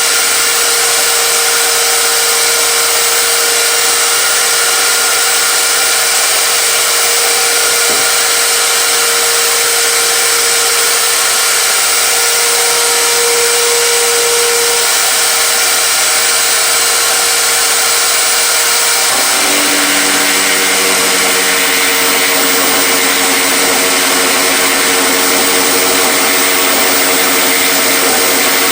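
A power tool or shop-type motor running steadily and loudly, with a strong airy hiss and a constant hum. About two-thirds of the way through, a lower, layered hum joins it.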